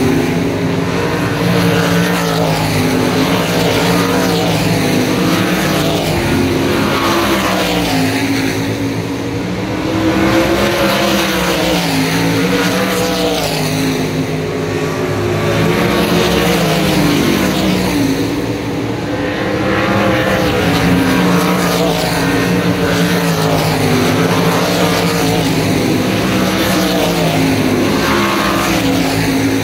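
A field of winged sprint cars racing on a dirt oval, their V8 engines running hard with the pitch rising and falling through the corners. The sound swells about every ten seconds as the pack comes by.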